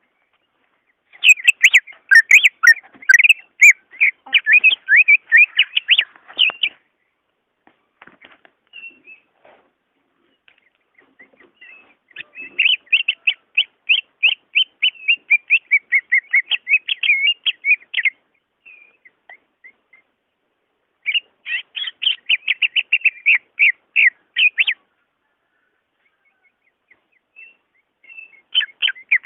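Green leafbird (cucak ijo) singing: fast runs of high chirping notes in four bursts of a few seconds each, with short pauses between them.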